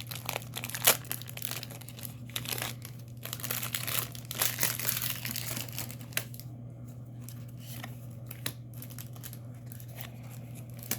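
Trading card booster pack wrapper being torn open and crinkled by hand: dense crinkling for about six seconds, then only occasional crinkles and clicks.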